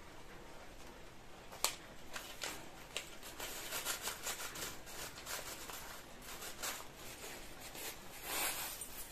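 Faint handling sounds: a couple of soft clicks, then rustling of a clear plastic bag of small metal charms being picked up and handled, from about three seconds in.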